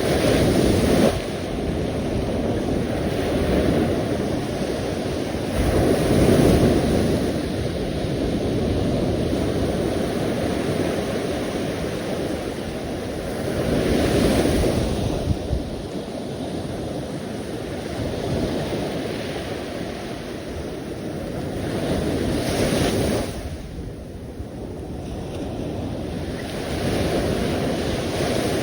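Sea waves breaking and washing on the shore, a steady rush that surges about every seven or eight seconds as each wave comes in.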